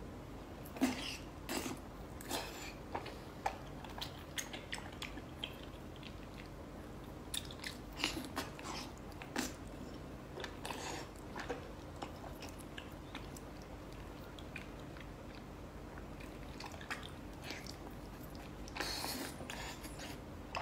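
Close-up mouth sounds of someone eating soft braised fatty pork belly: wet chewing with short, irregular smacks and clicks as the meat is bitten and chewed. A faint steady hum runs underneath.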